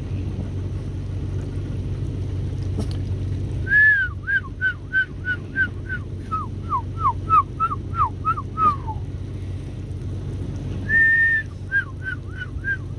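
A small dog whining in two bouts: each opens with a long high whine, followed by a run of short whines that bend up and down, about two or three a second. Under it runs the steady low rumble of an idling vehicle engine.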